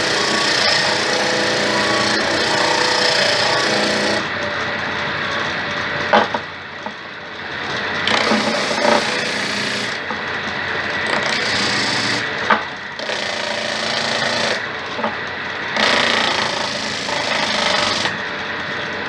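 Homemade disc sander, a wood lathe fitted with a sandpaper-covered plywood disc and driven by an electric motor, running while wood is sanded on it. The rasping comes and goes, with a few sharp knocks.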